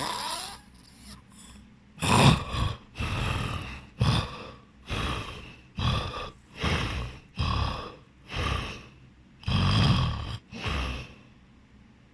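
A person snoring loudly in quick, uneven snorts: one at the start, then about a dozen in a row from about two seconds in, stopping a second before the end.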